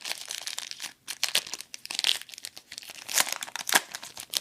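Trading card pack wrappers crinkling and tearing as packs are opened by hand: irregular, sharp crackling with a brief pause about a second in.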